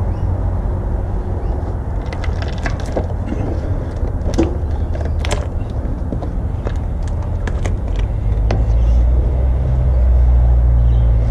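Scattered clicks and cracks as a caravan's corner J-moulding strip is pried away from its old sealant, bunched in the middle of the stretch. A steady low rumble runs underneath and grows louder near the end.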